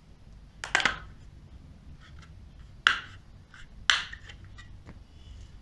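Plastic back cover of a Samsung Galaxy J4 being prised off the phone, its clips snapping loose in three sharp clicks: one just under a second in, then two about a second apart, with lighter clicks and scratches between.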